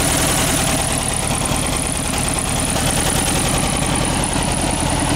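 1968 VW Beetle's air-cooled flat-four engine idling steadily with a miss: one cylinder is dead and it is running on three.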